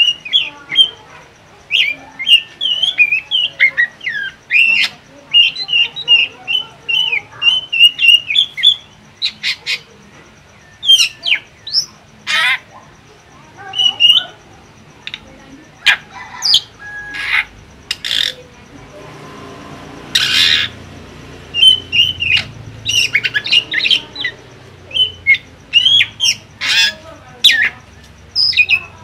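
A caged drongo singing: a fast, varied string of short whistled chirps and slurred notes, broken by sharp clicking calls, with one longer raspy squawk about two thirds of the way through.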